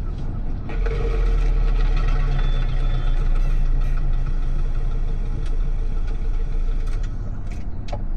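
Car driving: a steady low rumble with road noise that grows louder about a second in and then holds, with a few faint clicks near the end.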